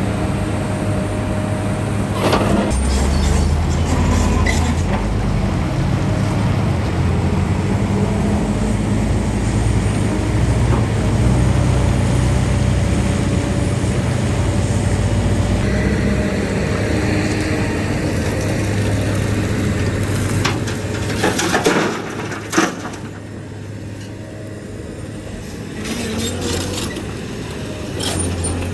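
Heavy diesel machinery engine running steadily, with a few sharp knocks and clanks: one cluster a couple of seconds in and several more near the end. The engine drops off about three-quarters of the way through.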